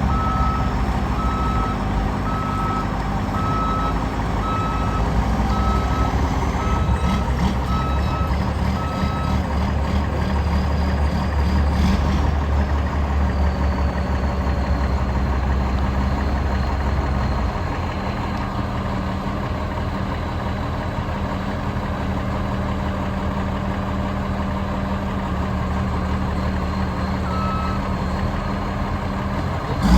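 Heavy delivery vehicle's engine running steadily, with its reversing alarm beeping about once a second for the first ten seconds and once more near the end.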